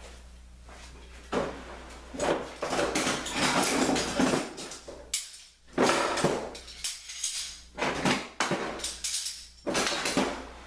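Metal clamp clanking and rattling as it is handled, slid into place and tightened against the saw's extension table, in irregular bursts of knocks and scrapes.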